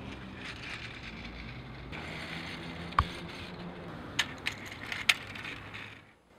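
Tin toy truck's metal wheels rolling and scraping across a concrete tabletop, over a faint low hum. A sharp clack about three seconds in and several more between four and five seconds in as the toy knocks against the table.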